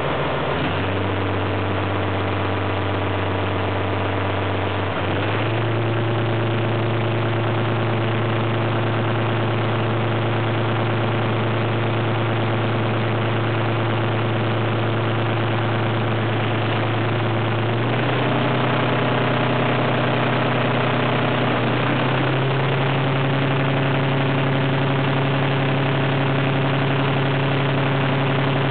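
The MGO diesel engine of an SNCF X 2800 railcar running under acceleration: a steady, even engine note that drops in pitch about a second in, then steps up in pitch three times, about 5, 18 and 22 seconds in, holding steady between the steps.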